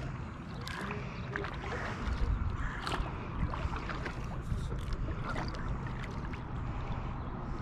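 Sounds of a fishing kayak on the water: scattered knocks, clicks and splashes over a steady low rumble.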